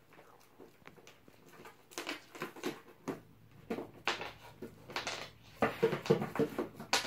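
A cat pawing and stepping about on paper and a small cardboard box: irregular rustles and taps that grow busier in the second half, with one sharp click near the end.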